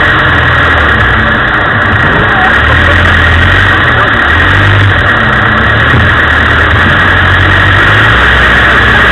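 Land Rover engine running at low revs as the vehicle crawls through deep muddy ruts, its note rising and falling every second or two with the throttle.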